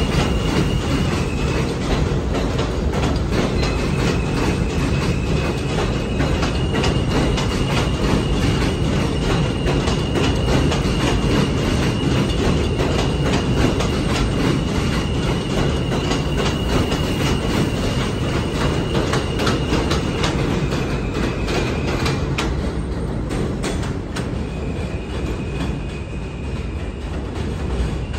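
New York City subway train of R160 cars moving along curved elevated track: a steady rumble with repeated clicking of the wheels, and a long high steady squeal from the wheels that drops out and returns several times.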